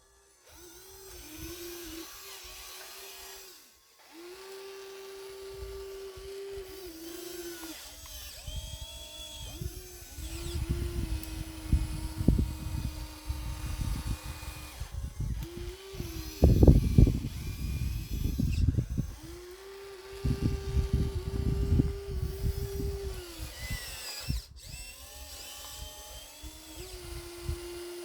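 Small electric motors of RC construction models whining steadily, starting and stopping several times as the machines move and work. Over them come bouts of low crunching and rumbling as loose material is dug, loaded or tipped, loudest about two thirds of the way through.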